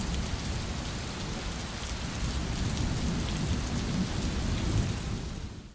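Steady rain with a low rolling rumble of thunder, cutting off abruptly at the very end.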